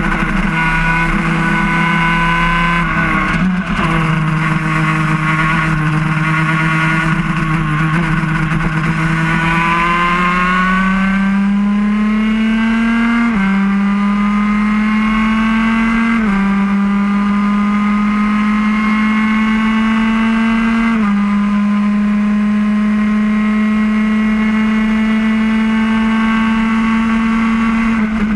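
Racing kart engine at full throttle, heard from the kart itself. It holds a steady pitch at first, then climbs from about nine seconds in. The pitch drops suddenly three times, then holds high and steady.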